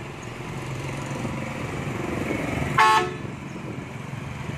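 Diesel dump truck engine running and slowly rising in level as the loaded bed tips up. A short, loud horn toot sounds a little past halfway.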